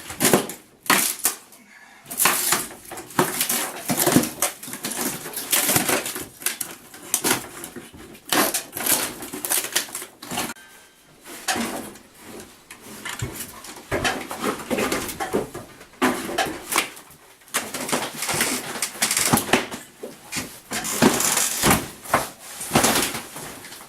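Irregular knocking, scraping and clattering of hands and tools working on wood and debris, in a series of uneven bursts.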